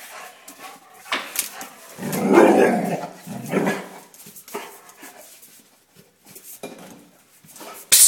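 Rottweiler barking twice: a longer, loud bark about two seconds in and a shorter one a second later. A sudden loud knock comes right at the end.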